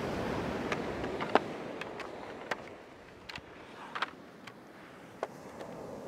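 About ten sharp clicks and knocks, spaced irregularly, from a tripod's leg sections and locks being handled as it is folded down. Beneath them runs the hiss of surf, which drops off about halfway.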